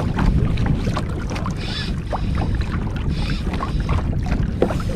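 Wind buffeting the microphone in a steady low rumble on an open kayak, with a few light knocks.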